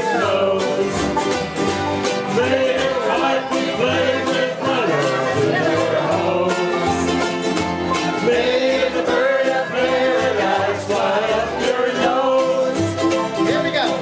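Acoustic string band of ukuleles, guitar and banjo playing an upbeat country tune, with a wavering lead melody over the strummed chords and low bass notes.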